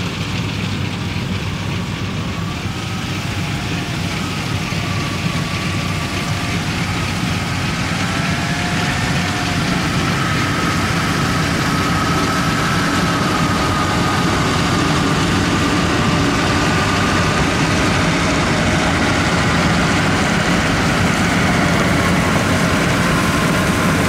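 Yanmar AW82V rice combine harvester running steadily, with a faint wavering whine that climbs slowly as the machine grows a little louder.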